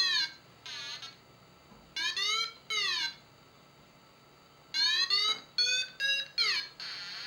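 Paragliding audio variometer sounding its lift tones: a string of short electronic beeps that glide up and down in pitch. After a pause of about a second and a half comes a quicker run of beeps near the end. The changing pitch follows the instrument's sensed rate of climb or sink.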